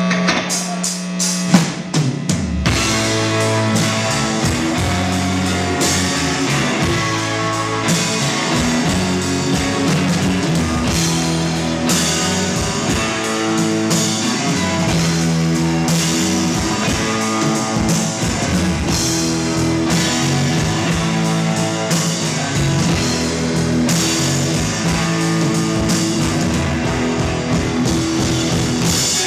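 Rock band playing live: drum kit, electric guitar and bass guitar. A held low note and a few drum hits open it, and the full band comes in about three seconds in and plays on steadily.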